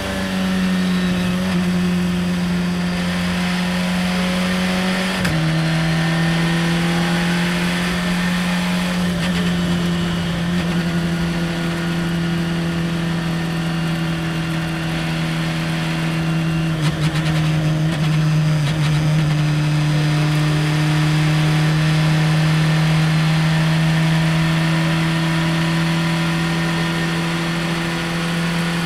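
Radical open-cockpit race car engine heard onboard, running steadily at a mid-range pitch at part throttle. About five seconds in the note steps down as the car shifts from third to fourth gear, then holds nearly level.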